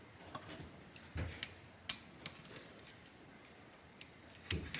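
Scattered light clicks and taps of a small screwdriver working the screws of a plastic wire terminal block, with the sharpest pair of clicks near the end.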